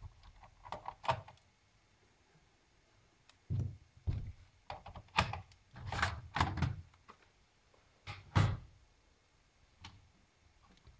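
Laptop optical drive being pulled out of its bay: a run of plastic knocks and sliding scrapes, several separate thunks with short pauses between them.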